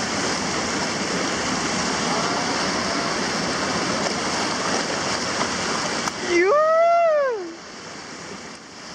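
Whitewater rapids rushing steadily. About six seconds in, a person gives one long yell that rises and then falls in pitch, and the rushing drops quieter near the end.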